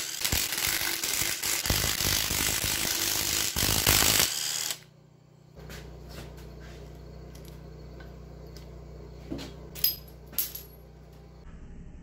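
Cordless impact driver rattling as it runs out bolts on a Nissan cylinder head's camshaft caps, for about the first four and a half seconds. It then stops suddenly, leaving a low hum and a few light metallic clicks as loosened parts are handled.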